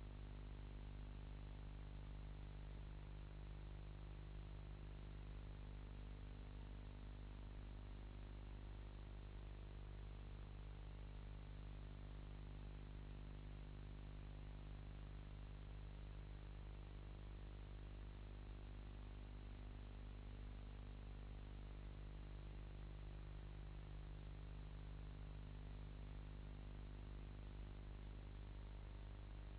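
Near silence: a steady low hum with faint hiss and thin high whines, unchanging, with no other sound.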